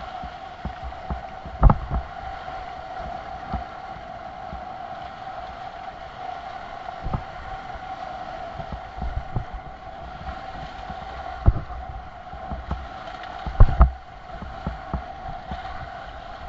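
Whitewater rushing and splashing around a surfboard as it rides a broken wave, with a few heavy thumps of water and board against the camera, the loudest near the end. A steady high whine runs underneath.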